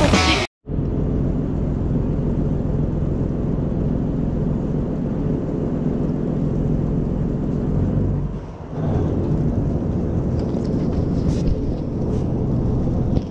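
Fishing boat's engine running, a steady low hum that dips briefly about eight and a half seconds in.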